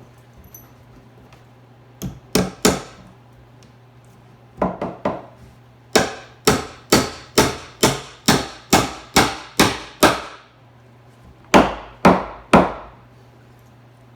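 Hammer driving nails into wooden wall framing: groups of sharp strikes with a short ring, three, then three more, then a steady run of about nine at two a second, then three more near the end.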